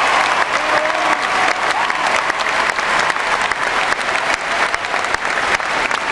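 Large arena crowd applauding and cheering: dense, steady clapping, with a few voices shouting over it in the first couple of seconds.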